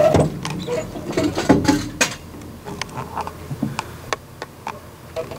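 Irregular clicks, taps and knocks of hand work on car parts, with no steady machine sound.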